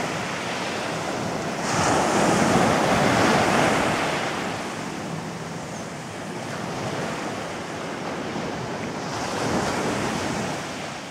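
Small sea waves breaking and washing up a sandy beach, each surge swelling and ebbing, loudest about two seconds in and again near the end before the sound fades out.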